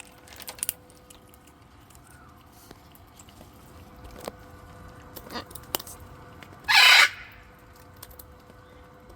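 A parrot gives one loud, harsh squawk about seven seconds in. Before it come a few faint short clicks and calls, over a faint steady hum.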